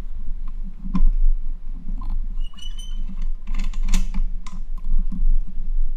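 Soft clicks and taps of trading cards being handled on a tabletop, over a steady low hum. A brief high squeak comes about two and a half seconds in.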